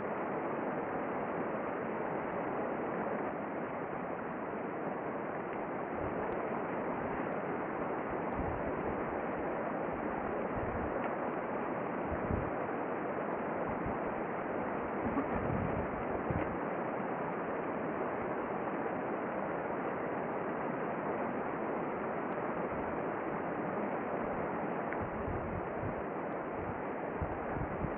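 Steady wind noise on the camera microphone, with irregular low buffeting.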